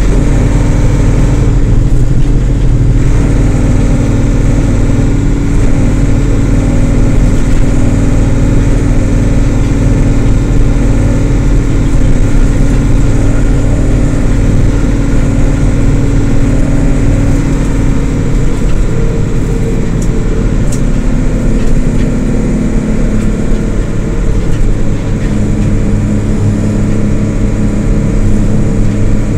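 2006 Isuzu LT133P bus's diesel engine running steadily under way. Its note changes pitch about two-thirds of the way through.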